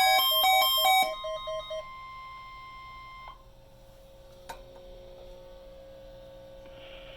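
EAR-10WH weather alert radio sounding its electronic alert: a loud repeating pattern of pitched beeps that stops about a second in, then quicker single-pitch beeps and a steady tone that ends about three seconds in. This is followed by low hiss with one click and a faint steady tone. The receiver is alerting for a NOAA Weather Radio required weekly test.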